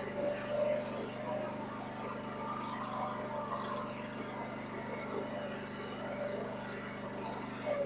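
Huayee mini excavator's engine running steadily at an even pitch while the machine works.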